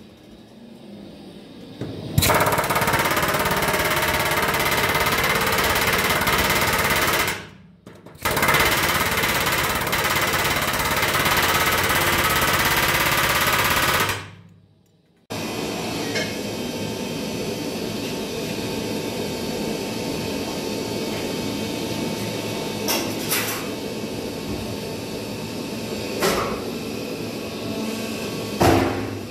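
Pneumatic rivet hammer running against a red-hot steel rivet in two long runs of about five and six seconds, with a short break between. After that, a steadier, quieter machine noise with three sharp knocks.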